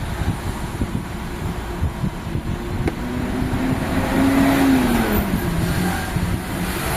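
A road vehicle passing by, its engine tone rising and then falling, over a steady background rumble. There is a single sharp click about three seconds in.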